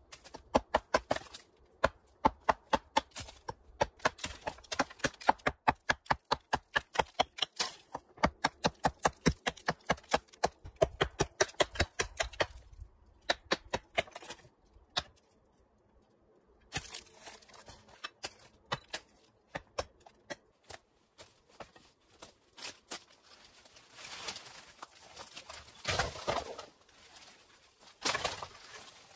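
A hatchet striking the top of an old brick wall: quick sharp knocks about three a second for roughly twelve seconds, then a short pause and scattered knocks. Near the end, crunching of dry brush and debris underfoot.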